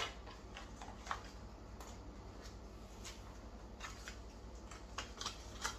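Scattered small clicks and light rustles of a tablet's accessories and plastic packaging being handled, a few louder taps about a second in and near the end.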